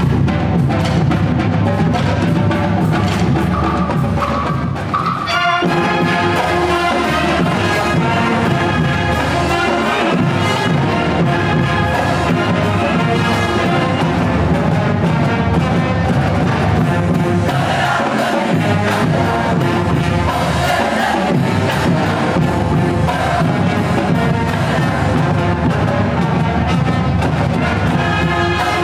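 High school marching band playing a tune live, with brass, saxophones and drums: mostly percussion at first, then the full horn sections come in about five seconds in and play loud and steady.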